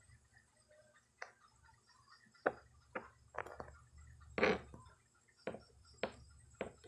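Pencil writing on paper over a hard tabletop: about eight short, separate scratches and taps, spread out and irregular.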